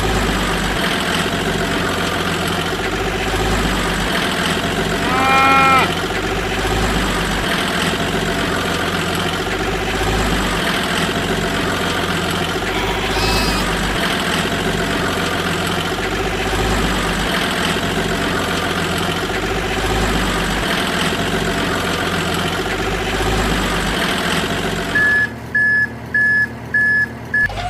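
Steady engine-like running with several layered tones, then four evenly spaced reversing beeps near the end, as from a toy truck's electronic sound effects.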